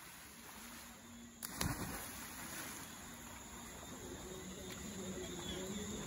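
River water splashing and churning around swimmers, with a sudden sharp hit about a second and a half in, the loudest moment, and the water noise growing louder after it. Insects chirp faintly in the background.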